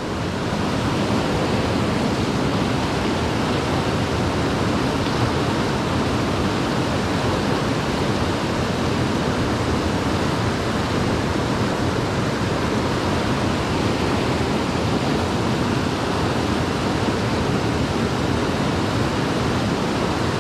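Fast-flowing river water rushing steadily, an even unbroken rush of current.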